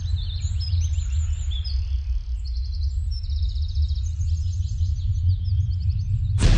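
Film sound design: a loud, steady low rumbling drone under many quick bird chirps, which die away about five seconds in. A sudden loud hit comes just before the end.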